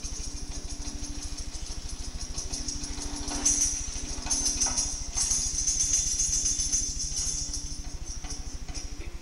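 Stage music of shaken jingling percussion, swelling about three and a half seconds in, over a steady low hum.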